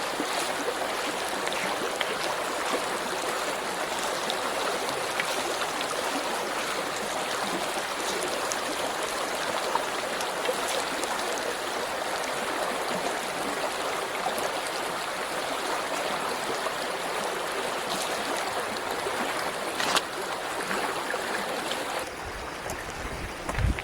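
Running water, a steady rushing stream, with a few faint clicks; it turns a little quieter near the end.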